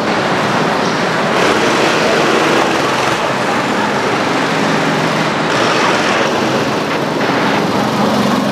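Go-kart engines running at speed, a steady loud engine noise with no break.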